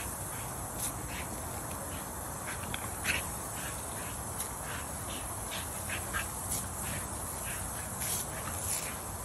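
A dog giving many short, high-pitched excited yelps and squeals as it goes after the spray from a garden hose, over the steady hiss of the water jet.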